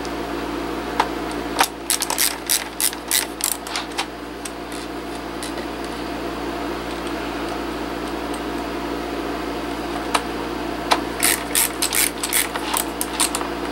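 Screwdriver driving screws into a mechanical keyboard's plastic back case, with two spells of quick clicking, about two seconds in and again near the end, over a steady background hum.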